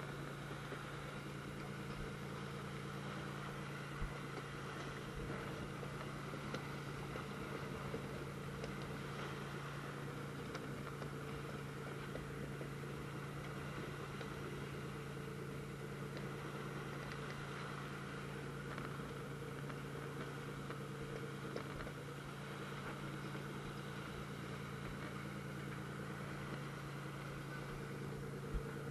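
Fishing boat's engine running at a steady speed, an unchanging hum, with a couple of faint knocks, one about four seconds in and one near the end.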